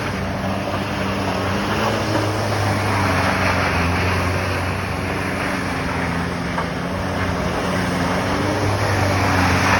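A vehicle engine running steadily while the vehicle drives, over a continuous rushing noise.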